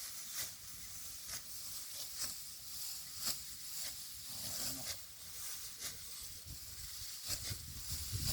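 Rice stalks being cut and handled by hand in a field: short, crisp rustling swishes about once a second, with a low rumble coming in near the end.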